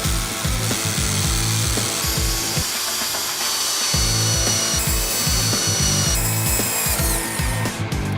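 Electric impact drill running, cut into several short takes, over background music with a steady beat.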